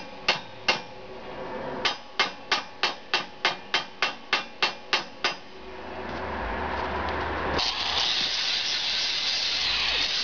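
A hammer striking steel: two blows, then a quick run of about a dozen at roughly four a second. Near the end an angle grinder starts and runs with a loud, steady whine.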